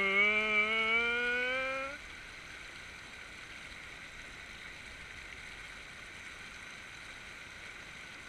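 River water rushing steadily over rocks. Over it, for the first two seconds, a long drawn-out vocal call rises slowly in pitch and cuts off about two seconds in.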